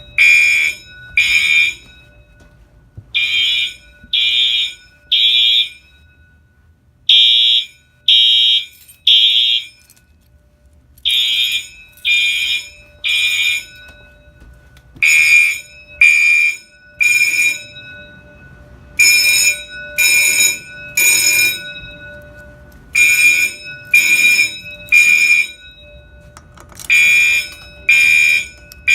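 Fire alarm horns, a Gentex SHG and a Wheelock AES among them, sounding the Code 3 temporal pattern: three short blasts about a second apart, a pause, and the group of three again, over and over. The mix of horn tones changes a little from group to group.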